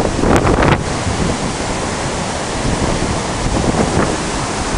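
River in spate rushing in whitewater over rocks, a loud steady rush of water. Wind buffets the microphone in gusts during the first second.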